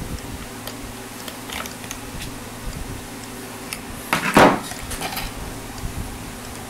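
Light metallic clicks and clinks as the Floyd Rose tremolo bridge, its steel strings and a hex key are handled during restringing, with one louder metal rattle about four seconds in, over a steady low hum.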